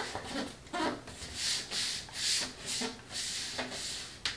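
Paper glued down with Mod Podge being rubbed flat onto foam core board to push out air bubbles: a series of dry swishing strokes, a little more than one a second, with a sharp click near the end.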